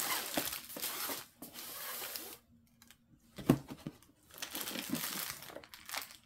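Rustling and crinkling of a non-woven fabric drawstring sleeve being handled and opened, with a brief pause in the middle and a single sharp knock about three and a half seconds in.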